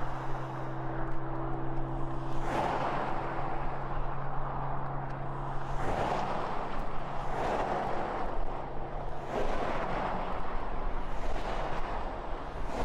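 A vehicle on the move: a rushing noise of wind and road that swells and fades every second or two. A steady low hum under it drops away within the first few seconds.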